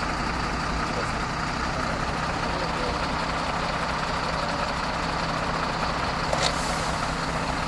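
Fire engine idling with a steady low engine drone, and one brief knock about six seconds in.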